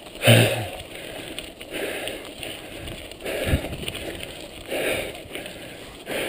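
A mountain biker breathing hard from the effort of pedalling, about one loud breath every second and a half, with a short voiced grunt at the first breath. Tyre and trail noise hisses underneath.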